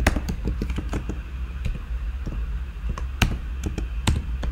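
Typing on a computer keyboard: irregular key clicks as a terminal command is typed, with two louder keystrokes about three and four seconds in, over a low steady hum.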